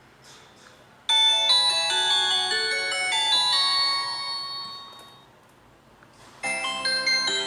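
LG LX125 ringtone tunes played on a Samsung Galaxy J7 Prime. A bright, chiming melody starts about a second in and fades out by about five seconds in. A second tune begins about a second and a half after that.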